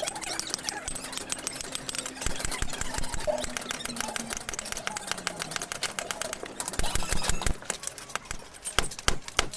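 Hammer tapping on metal: a quick, uneven run of many light, sharp taps a second. A faint low hum slides down in pitch in the middle.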